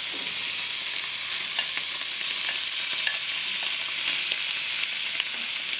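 Pieces of Iberian pork fillet frying in hot oil in a pan, a steady sizzle, as dried fruit is pushed in with a wooden spatula, with a few faint clicks and scrapes.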